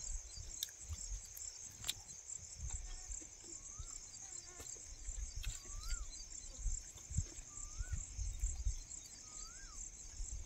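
Outdoor rural ambience: insects trill steadily at a high pitch while a bird gives short whistled notes that rise and then fall, about one every two seconds, over a low rumble of wind on the microphone.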